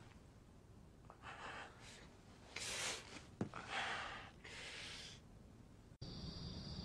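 A young man's heavy, gasping breaths, four of them a second or so apart. About six seconds in, a sudden change to a steady chirring of crickets.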